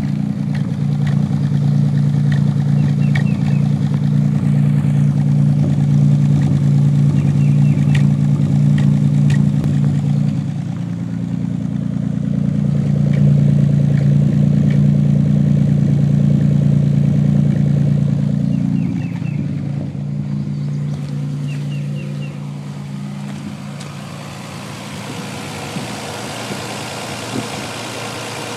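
1990 Nissan 300ZX V6 running at idle, heard through the exhaust, with a sporadic popping miss on the driver-side bank. The owner traces the miss to the number 4 injector, which acts up once the engine is warm. The engine sound gets quieter about two-thirds of the way in.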